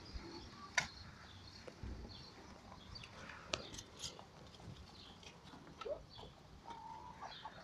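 Rabbit feeding from a bowl of mixed grain and pellets: faint rustling and nibbling, with a few sharp clicks about a second in and again around four seconds in. A few short chirps come near the end.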